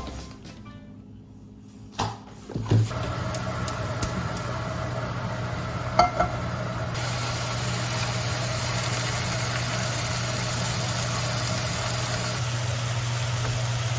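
A kitchen fan runs with a steady low hum, switching on about three seconds in after a click. From about halfway, pork and onion sizzle in a nonstick frying pan on a gas hob, adding a hiss over the hum.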